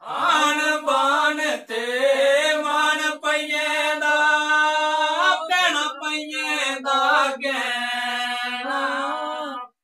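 A man singing a line of a Dogri folk song in a slow, drawn-out style, with long held notes that bend and waver in pitch. The voice breaks off abruptly just before the end.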